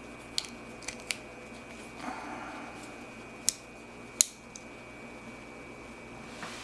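Sharp metal clicks and snaps of a folding multi-tool being handled, its pliers and blades opening and closing: about five clicks, the two loudest about three and a half and four seconds in, with a soft rustle in between.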